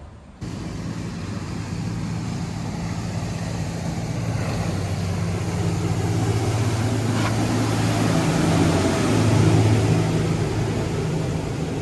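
An engine running with a steady low hum that starts suddenly just after the beginning, grows louder past the middle and eases slightly near the end.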